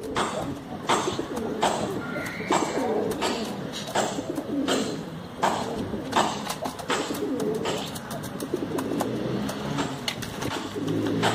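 Domestic pigeons cooing, with sharp clicks or taps about once or twice a second cutting through the coos. A low steady hum starts near the end.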